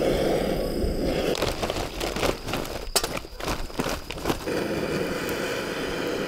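Butane torch hissing steadily as it lights kindling, then charcoal briquettes clattering into the stainless-steel grill as they are poured from a bag, about a second in and for some three seconds; the torch then hisses again as it is played on the charcoal.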